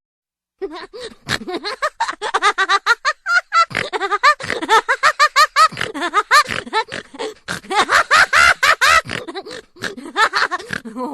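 Cartoon laugh sound effect: a long, rapid run of high-pitched cackling pulses, each rising and falling in pitch, running for about ten seconds.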